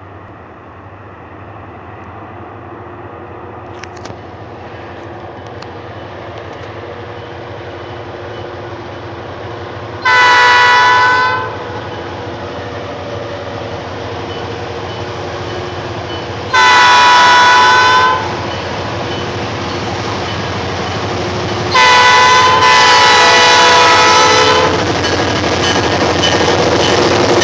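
Horn of an approaching GP38-2 diesel freight locomotive sounding the grade-crossing signal: long, long, short, long. Underneath, the rumble of the locomotives and train grows steadily louder as it nears.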